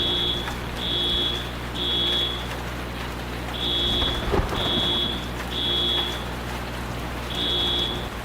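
A building fire alarm sounding in the temporal-three evacuation pattern: high, even beeps in groups of three with a short pause between groups. Under the beeps runs a steady rain-like noise and a low hum, with a dull thud about four seconds in.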